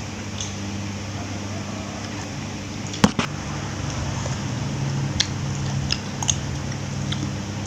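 Eating at a table: one sharp clink about three seconds in, like a spoon striking a plate, then a few lighter clicks of utensils and soft chewing over a steady low hum.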